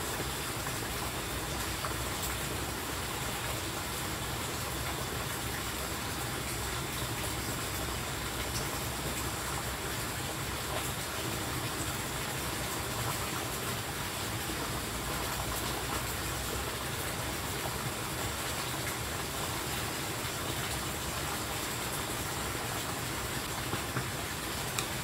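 Steady rush of running water, even and unbroken, with a few faint ticks.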